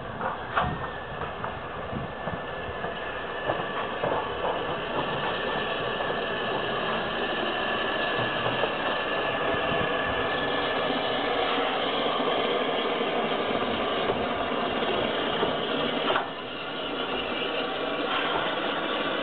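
Metropolitan Railway No. 1, an 0-4-4 steam tank locomotive, giving off a steady hiss of steam with mechanical noise beneath it. A few knocks come in the first seconds, and the hiss drops away suddenly about sixteen seconds in before picking up again.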